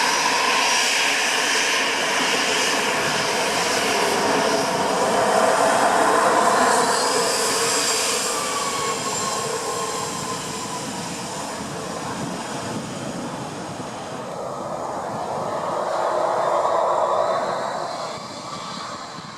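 Airbus A319 airliner's jet engines: a continuous rushing jet noise with a thin turbine whine, swelling about six seconds in and again near the end before fading. A falling whine sounds about eight seconds in.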